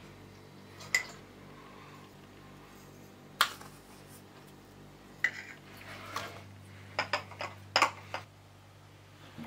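A metal spoon and glass jars clinking as salt is spooned from a china bowl into glass jars of raw pork. The clinks come one every second or two, then several in quick succession near the end.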